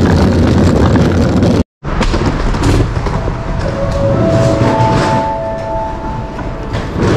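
Hard-shell suitcase wheels rolling over asphalt, a dense low rumble, cut off abruptly about a second and a half in. This is followed by the hubbub of a large airport terminal hall, with a few steady electronic tones sounding together around the middle.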